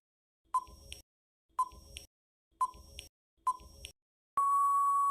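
Quiz countdown timer sound effect: four short beeps about a second apart, then one longer steady beep near the end, marking that the answering time is up.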